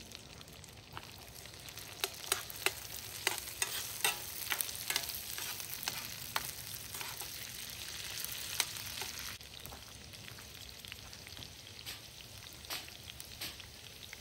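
Potatoes and onions frying in hot oil in a heavy pan: a steady sizzle with frequent sharp crackles and pops. The sizzle drops off about nine seconds in.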